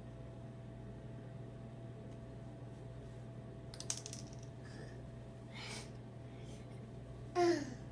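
A small hard click about four seconds in as a small plastic piece of a Chapstick tube drops onto a tile floor, then near the end a toddler's short vocal sound falling in pitch, the loudest thing here. A steady low hum runs underneath.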